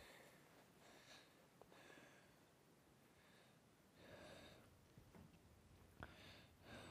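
A person's faint, slow breathing, a few breaths several seconds apart, with a soft click about six seconds in.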